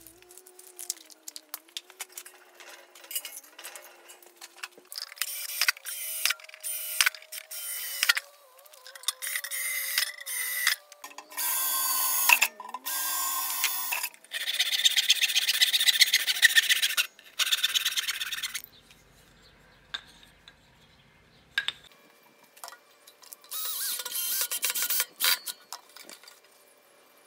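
Workshop tool noise in short stop-start bursts, among them a hacksaw cutting through a wooden dowel, with other hand- and power-tool work between.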